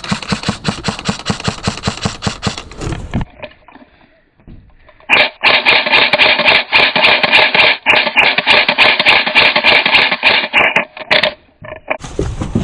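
Running footsteps for the first few seconds. Then, about five seconds in, an airsoft electric gun fires on full auto: a loud, rapid rattle over the whine of its gearbox for about six seconds, broken by brief pauses and ending with a few single shots.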